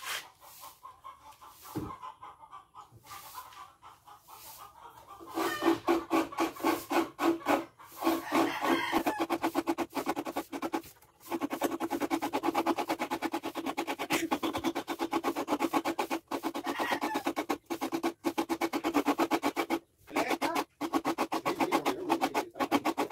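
Coconut meat being scraped out of a half shell by hand, a rapid, even run of scraping strokes that starts about five seconds in and goes on with only brief breaks, the grated coconut to be squeezed for coconut milk.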